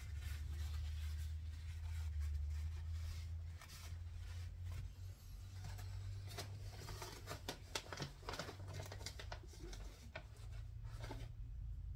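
Scratchy rubbing and light clicking of hands working over small steel scope rings, wiping and scrubbing away leftover lapping compound. The scrubbing comes in irregular strokes that grow busiest in the second half, over a steady low hum.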